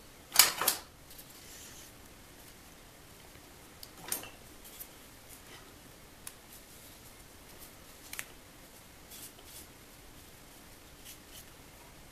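Glued plywood strips being handled and pressed together by hand: scattered short clicks and taps of light wood, the loudest a double click about half a second in, smaller ones around four and eight seconds in.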